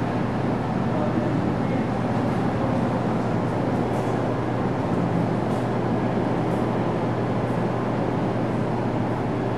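Steady mechanical rumble with a constant low hum underneath, unchanging throughout.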